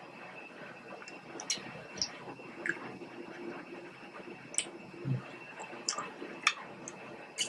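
Close mouth sounds of someone eating king crab: scattered wet smacks and small clicks of lips and sucked fingers, about a dozen over several seconds, with a soft low thump about five seconds in.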